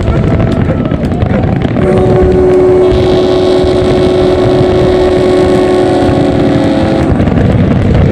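Boat engines rumbling on the water. A long steady horn blast comes in about two seconds in and holds for about five seconds before stopping.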